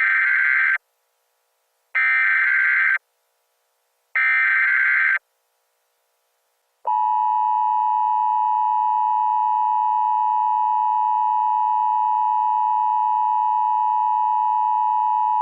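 Emergency Alert System tones: three one-second bursts of buzzy digital SAME header data about two seconds apart, then, after a short pause, the steady two-tone EAS attention signal held without a break.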